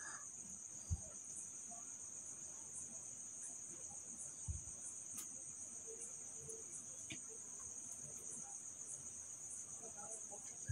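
Crickets chirring faintly and steadily at a high pitch, with two soft low thumps about one and four and a half seconds in.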